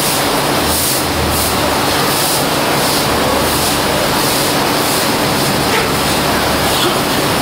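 Steady rushing and splashing of water running into live seafood tanks, with a low rumble underneath.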